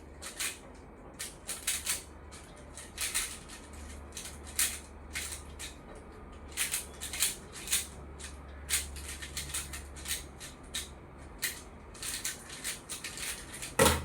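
Rubik's cube being turned fast in a speedsolve: quick, irregular plastic clicks and clacks of the layers snapping round, several a second.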